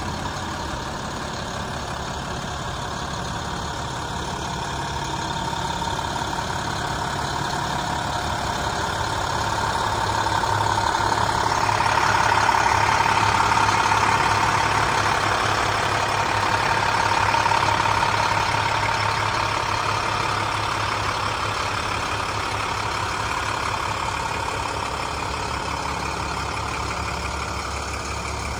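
MaxxForce 9 turbo diesel of an International 7400 truck idling steadily, growing louder around the middle and easing off again.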